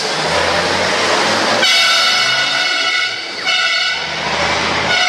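A truck's horn sounding two long blasts, the first starting about a second and a half in and the second about a half-second after the first stops, over an engine running.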